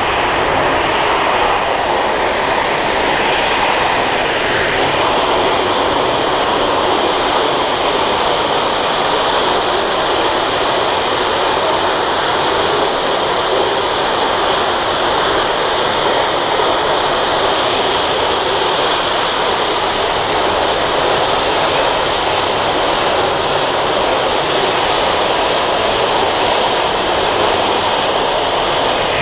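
Large gas fire: escaping gas burning in a tall jet of flame, with a loud, steady rushing noise.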